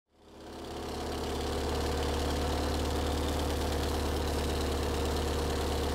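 Antonov An-2's nine-cylinder, 30-litre radial engine running steadily, a low, even drone that fades in over the first second.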